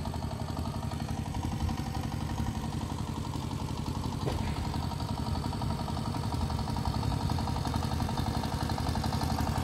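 Small boat's engine running steadily with a fast, even chugging beat, growing gradually louder as the boat comes closer.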